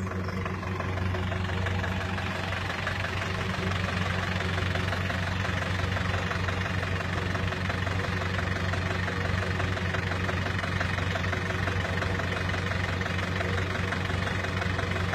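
A parked ice cream van's engine idling steadily.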